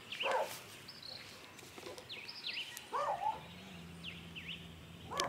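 Birds calling outdoors: a series of short, quick chirps that sweep down and up in pitch.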